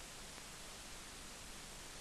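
Steady faint hiss of the recording's own noise, with a faint low hum and nothing else happening.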